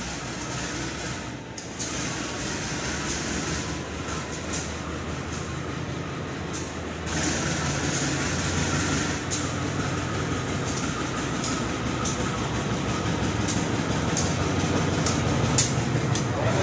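KAI CC 203 diesel-electric locomotive running light on a shunting move, its engine rumble growing louder as it approaches and passes close by. Sharp clicks come from its wheels on the track.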